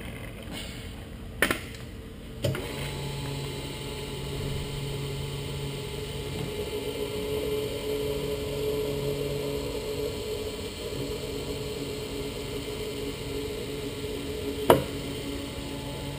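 Drill press running and drilling a hole in a metal part with coolant flowing, a steady motor hum that starts about two seconds in after a couple of clicks. A sharp click comes near the end.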